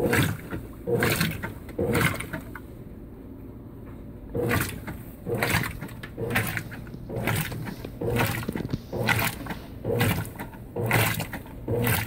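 Consul 16 kg top-load washing machine agitating a small load of wool sweaters in low water, its agitator churning the water back and forth in repeated swishing strokes. After a short pause about two seconds in, the strokes settle into a regular rhythm of roughly two a second.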